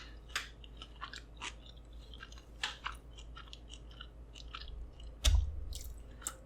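Close-miked chewing and wet mouth sounds of a person eating, with short crisp smacks and clicks. About five seconds in there is a single low thud, the loudest sound.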